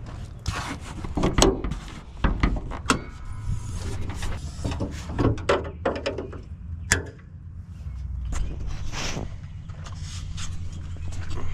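Hands working at the fuel injector wiring and its plastic connector: irregular clicks, knocks and rubbing, loudest in the first half, over a low steady hum.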